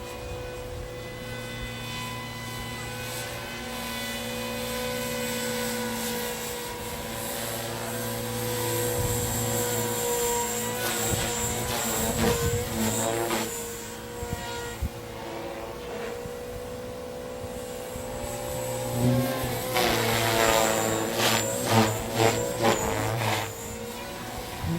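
FORZA 450 electric RC helicopter in flight: a steady whine from its motor and rotor. Twice, about halfway through and again near the end, the sound swells and the pitch wobbles up and down as the helicopter manoeuvres.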